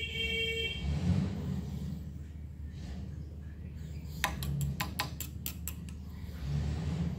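Metal grooming comb drawn through a dog's short coat, giving a low, uneven rustle. A short high tone sounds at the start, and a quick run of about eight sharp clicks comes a little after halfway.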